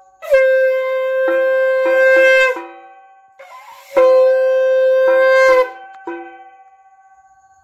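Conch shell (shankha) blown in two long, steady blasts about a second and a half apart. Short metallic strikes ring out between and after the blasts.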